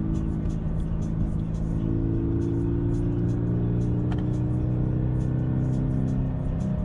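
Toyota 86's FA20 2.0-litre flat-four boxer engine pulling steadily at part throttle up a hill, its note holding nearly constant and rising slightly, heard from inside the cabin over road and tyre noise.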